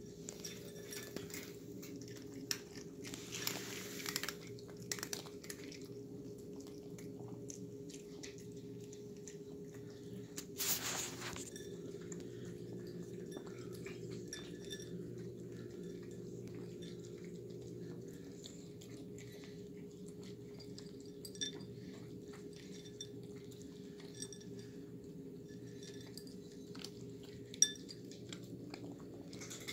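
Cats eating wet food from ceramic bowls: faint chewing and lapping with many small clicks, and a few sharper knocks against the bowl, the loudest near the end. A steady low hum runs underneath.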